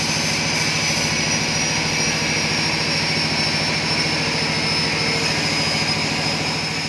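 A workshop machine's motor running steadily, with a low hum and a high whine that slowly drops in pitch over a hiss, fading away near the end.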